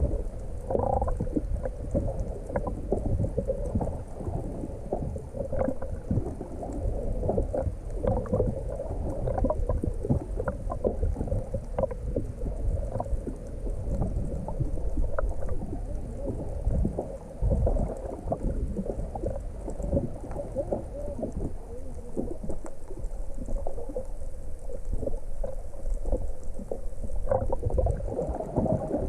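Water sloshing and gurgling, heard muffled through an underwater camera beneath a boat, with a steady low rumble and many small knocks.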